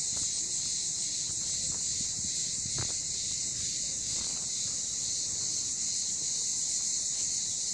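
Steady high-pitched drone of insects in the trees, unbroken throughout, with a few faint taps underneath.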